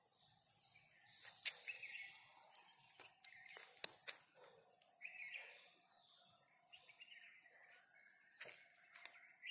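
Faint garden ambience: a steady, high, fast-pulsing insect trill with scattered bird chirps, and a few sharp clicks.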